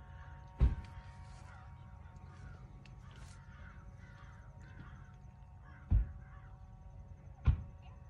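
Crows cawing in the background over a steady low rumble. Three sharp thumps stand out as the loudest sounds: about half a second in, about six seconds in and near the end.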